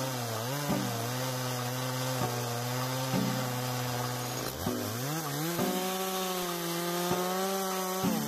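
Stihl two-stroke chainsaw running at high throttle while cutting into a tree trunk. Its engine note sags and recovers under load about half a second in and again around the middle, then runs at a higher pitch near the end.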